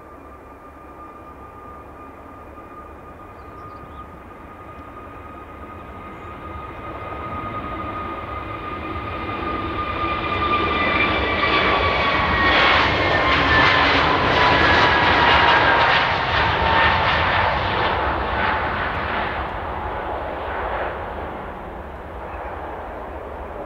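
Airbus A321neo's CFM LEAP-1A turbofans at takeoff thrust on the takeoff roll. The engine noise builds as the jet speeds past, and a high fan whine slides down in pitch as it goes by. It then fades as the aircraft lifts off and climbs away.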